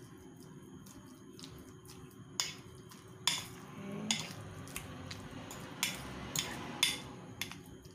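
Metal fork mashing ripe avocado in a dish: soft wet squishing, with several sharp clinks of the fork tines against the dish.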